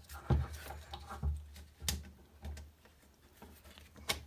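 Hands working on an M16A4 upper's handguard rail to get it off, making handling noise: two dull thumps in the first second and a half, then sharp clicks about two seconds in and near the end.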